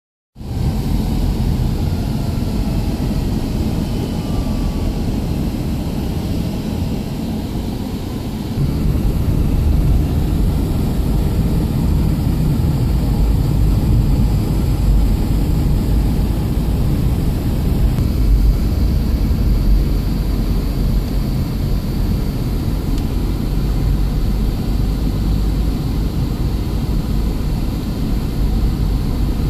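Car driving on a wet road, heard from inside the cabin: a steady low rumble of engine and tyres that grows louder about eight seconds in.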